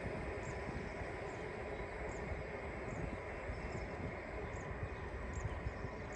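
Steady low rolling rumble of a long container freight train's wagons running away into the distance, with short high chirps repeating about once a second over it.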